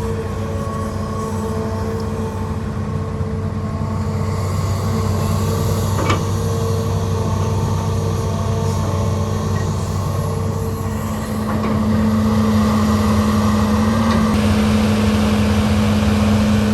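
Excavator's diesel engine running steadily, rising in level about two-thirds of the way through as the engine works harder. A single sharp knock about six seconds in.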